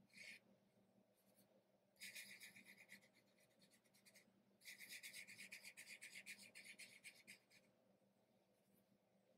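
Fingertips rubbing chalk pastel into paper in small circles to blend it: a faint, quick, repeated scratchy rubbing in two stretches, starting about two seconds in, with a short break in the middle, and stopping shortly before the end.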